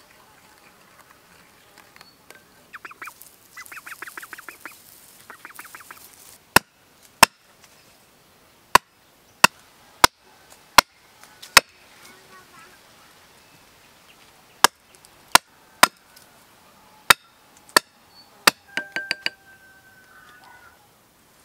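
An axe chopping wood on a chopping block: about a dozen sharp, loud strikes a little under a second apart, in two runs with a short pause between. Before the chopping, a bird calls in quick pulsed bursts, and near the end comes a brief rattle of small clicks.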